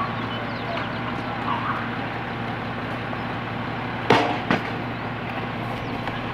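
Peterbilt 320 garbage truck's diesel engine idling steadily, with two sharp knocks about four seconds in.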